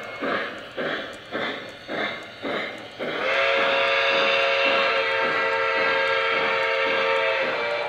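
Model steam locomotive's electronic sound system: steady chuffing about twice a second, then a long multi-tone steam whistle blast starting about three seconds in and held for over four seconds while the chuffing goes on underneath.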